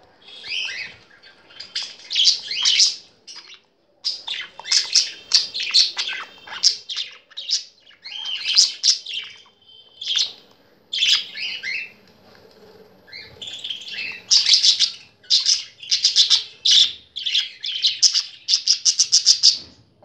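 Budgerigars chirping and chattering in quick runs of short, sharp calls, with a fast, even string of chirps near the end.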